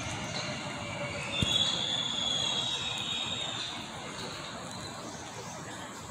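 ITX-Maeum electric train approaching along a curved track: several high, steady squealing tones over a low rumble, with one sharp click about a second and a half in.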